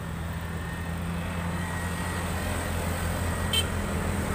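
A motor vehicle's engine running steadily, with a low hum that grows slowly louder. There is a brief click about three and a half seconds in.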